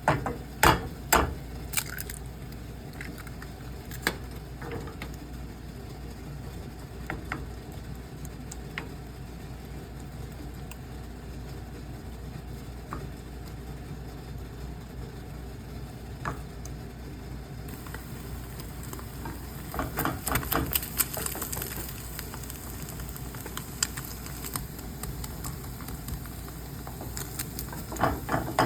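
Eggs frying in a pan on celery leaves: a few sharp taps near the start, then a steady low sizzle that turns brighter and crackly about two-thirds of the way through, with bursts of spitting.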